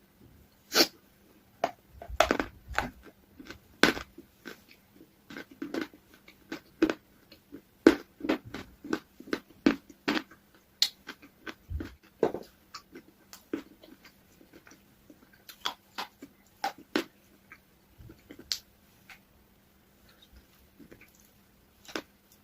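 Someone eating ice cream from a cone: irregular bites, chewing and mouth smacks, two or three clicks a second with short pauses between.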